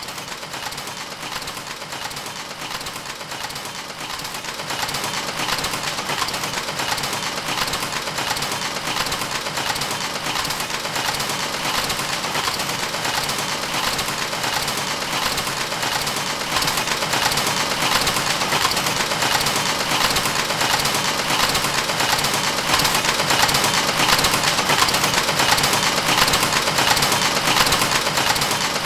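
Rhythmic mechanical clatter of running machinery, a fast, even beat that grows gradually louder.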